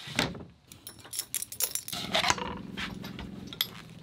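Knocks and clicks of a wooden cockpit hatch board and its metal latch being handled. About two seconds in, a steady low hum starts.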